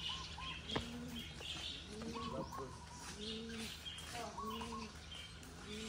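Domestic pigeons in an aviary cooing: several low, arching coos overlap and repeat throughout, with higher short chirps above them.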